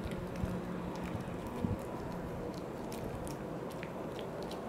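Poodle chewing a Virbac C.E.T. VegiDent dental chew: scattered small wet clicks and crunches from teeth on the chew, with one louder knock about a second and a half in.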